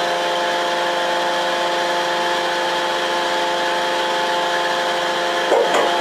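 Roadheader (tunnelling machine) machinery running with a steady, even hum, unchanging throughout, with a brief louder sound about five and a half seconds in.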